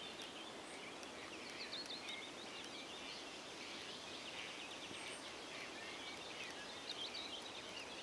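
Several songbirds singing and chirping in quick, overlapping phrases over a steady outdoor hiss.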